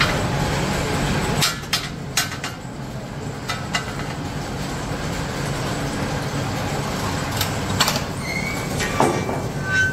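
Electric-motor-driven bolt-threading machine running with a steady hum, broken by sharp metal clinks and knocks as the steel rod and bolts are handled in it. The clinks come in small clusters, about one and a half to two seconds in, around three and a half seconds, and several in the last few seconds, with a brief metallic ring near the end.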